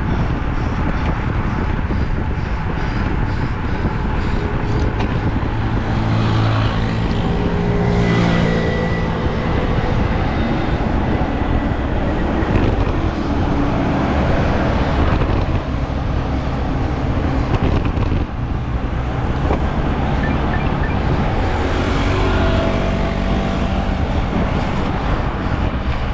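Motor vehicle engines on a road over a steady loud rushing noise; an engine note swells about six seconds in and again near the end.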